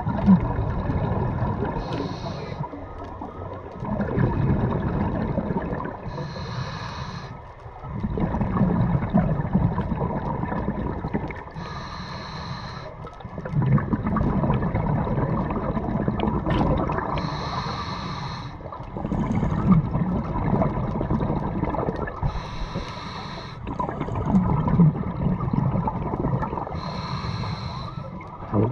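Scuba regulator breathing underwater, six breaths: each starts with a short hiss of inhalation through the demand valve, followed by a few seconds of low, rumbling exhaust bubbles, repeating about every five seconds.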